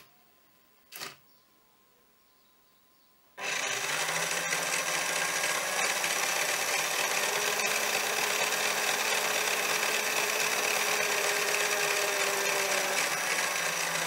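Small electric drive motor and gearbox of a toy RC car whirring steadily, starting suddenly about three and a half seconds in, with the rear wheels spinning freely off the ground. Before that, a single short click about a second in.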